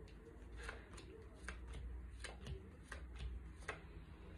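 Spanish playing cards being dealt onto a cloth-covered table: about six soft, sharp card snaps spread over a few seconds.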